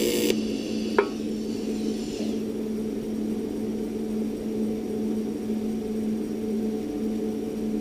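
AC TIG welding arc on cast aluminium buzzes and cuts off just after the start, leaving the welding machine's steady hum. There is a single sharp click about a second in and a faint hiss that fades over the next second or so.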